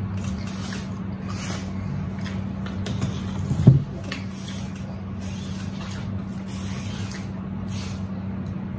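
Paper napkins and sandwich wrapping rustling and rubbing as hands are wiped, along with chewing, in short hissy scrapes over a steady low hum. A brief louder low sound comes near four seconds in.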